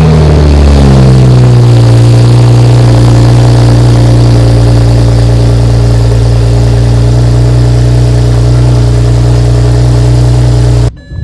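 BMW 335i's N54 twin-turbo inline-six on its first cold start with a new full aftermarket exhaust, running loud and steady at idle. Its pitch settles down over the first second or two after the start flare. The sound drops out briefly near the end.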